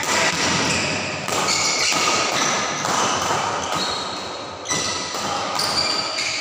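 Badminton rally: rackets strike the shuttlecock about once a second, with players' footsteps on the court and a busy, echoing hall behind.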